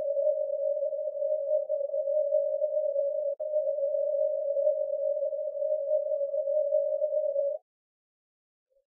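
A steady electronic sine-like tone held at one mid pitch with a slight waver. It drops out for an instant about three and a half seconds in and cuts off suddenly near the end.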